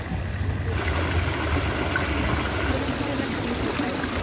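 Fountain water jets splashing into a pool: a steady rushing noise that comes in fully under a second in.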